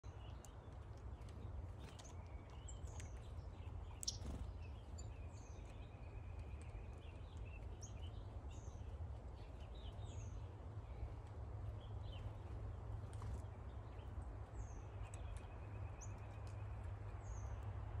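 Wild songbirds calling around a backyard suet feeder: scattered short, high chirps about once a second and two level trills of about two seconds each, one about five seconds in and one near the end. A single sharp click about four seconds in, over a steady low rumble.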